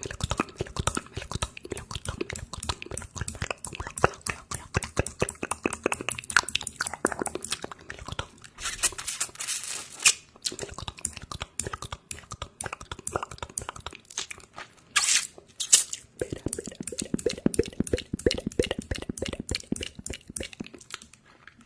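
Close-miked ASMR trigger sounds: dense, rapid clicking and crackling, with a short hissing burst around nine to ten seconds in. Faster, lower clicking follows for a few seconds near the end.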